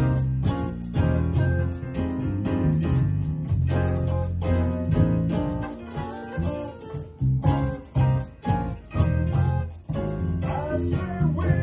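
Instrumental music: electronic keyboard chords over a bass line, with a steady beat.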